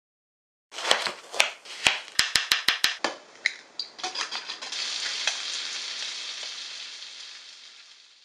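Sharp taps and a fast run of clinks against a glass bowl as an egg is cracked and worked in it, followed by bacon sizzling in a frying pan, a steady hiss that fades out near the end.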